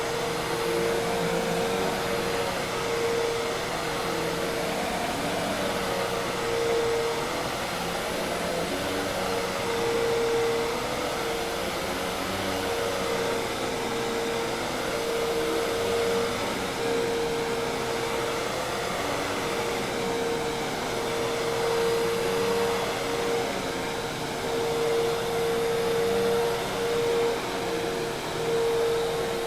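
Hoover Task Vac commercial vacuum cleaner running steadily: continuous motor and airflow noise with a steady hum-like tone just under 500 Hz.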